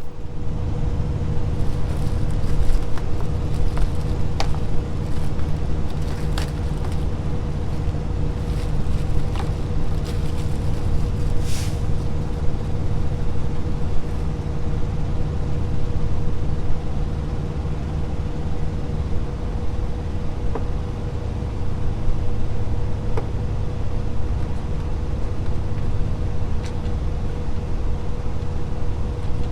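Steady drone of an idling diesel truck engine, with a few sharp clicks and a short burst of air hiss about twelve seconds in.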